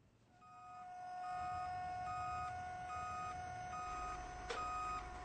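A truck's reversing alarm beeping about once a second over a low engine rumble and a steady tone, with two sharp clicks near the end.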